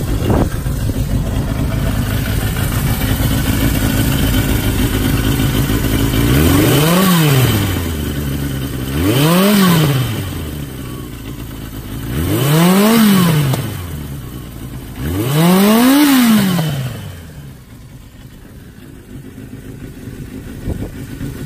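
Suzuki GSX750S Katana's air-cooled inline-four idling, blipped four times: each time the revs climb sharply and fall straight back to idle. The sound is quieter for the last few seconds.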